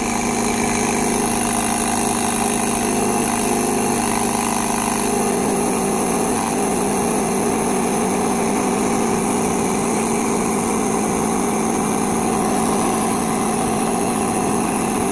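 Air compressor built into a DieHard 1150 portable power pack running steadily, pressurising a pump-sprayer water tank from about 22 up to 35 psi. Its lower hum thins out about five seconds in.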